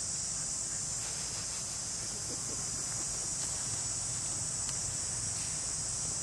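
Steady high-pitched chorus of insects: a dense, even buzz that never lets up.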